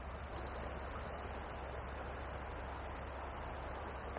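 Steady rushing of shallow river water running over gravel, with a faint high bird chirp about half a second in and another around three seconds in.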